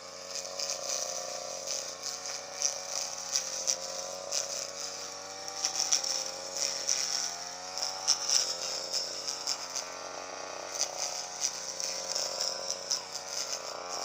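Grass-cutting machine's motor running at high speed, its pitch wavering slightly up and down, with a steady hiss and many scattered ticks and rattles.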